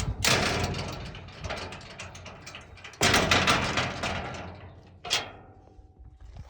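A metal gate rattling and scraping as it is moved. It comes in two long grinding bursts about three seconds apart, each fading away, with a shorter rattle just after five seconds.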